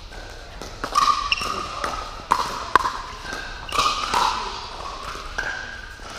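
Pickleball rally: paddles striking the hard plastic ball and the ball bouncing on the court, a string of sharp pocks about every half second to second, echoing in a large indoor hall.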